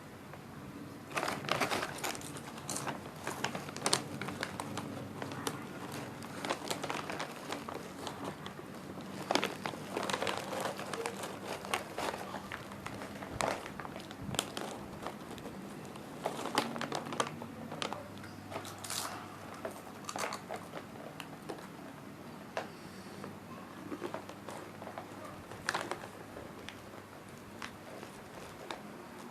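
A person biting and chewing crunchy fried snacks close to the microphone: irregular sharp crunches scattered throughout, with some crinkling.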